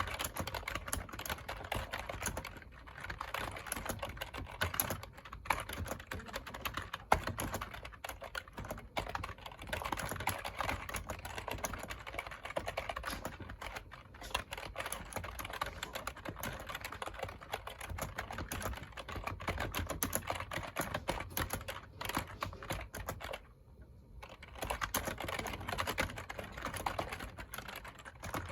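Continuous typing on a computer keyboard: a dense, irregular run of key clicks, with a brief pause about four-fifths of the way through.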